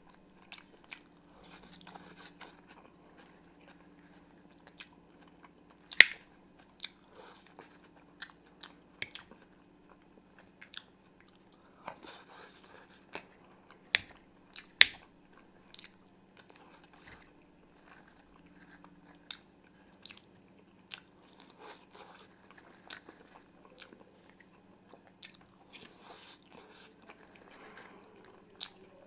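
Close-miked chewing and biting of fried potatoes, with crunching and wet mouth sounds, punctuated by sharp clicks of a metal fork against the frying pan; the loudest clicks come about six seconds in and twice near the middle. A faint steady low hum runs underneath.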